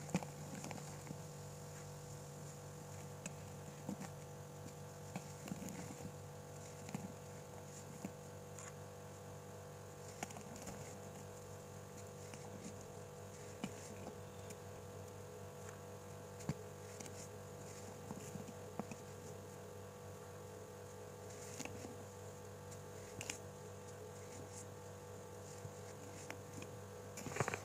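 Hands crumbling and squishing baking soda shots soaked in cola: faint, scattered crunches and wet squishes over a steady electrical hum.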